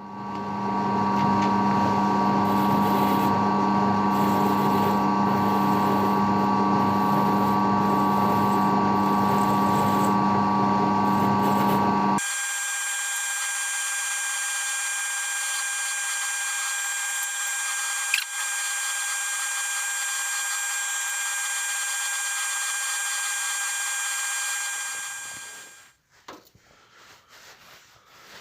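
Hitachi D13 low-speed electric drill running steadily with a constant motor and gear whine. About halfway through the sound changes abruptly and becomes somewhat quieter and thinner, then the drill stops near the end.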